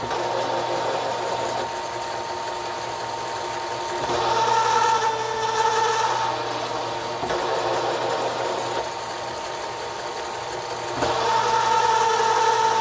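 Bridgeport milling machine running a Procunier #3 tapping head, tapping 3/8" threads into 5/8" aluminum plate. A steady machine hum, with a higher whine that comes in twice: about four seconds in for a couple of seconds, and again near the end.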